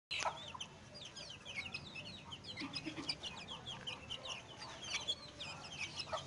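Chicks peeping continuously: many short, high cheeps, some rising and some falling, overlapping from several birds. A few low clucks from the mother hen come about halfway through.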